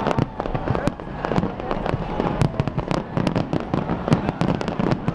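Large fireworks display bursting, a dense run of sharp bangs and cracks several times a second with no pause.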